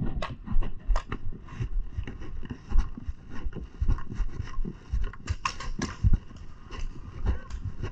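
Irregular knocks, clicks and low thumps of a paintball player walking and his gear moving, over a low rumble, with a few sharper cracks.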